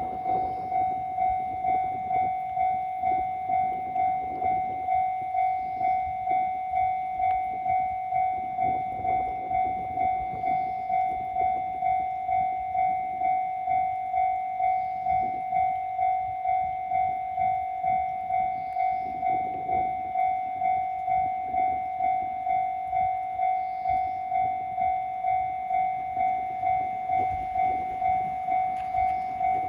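Japanese railway level crossing's electronic warning bell ringing steadily, one pitched tone repeating at about three strokes every two seconds, the signal that a train is approaching and the crossing is closed.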